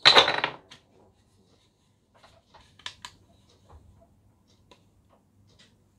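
Wooden pen blanks handled and shifted on a stone counter, a short loud rustle and scrape at the start, followed by faint clicks and light taps as a handheld wood moisture meter is picked up and pressed against a blank.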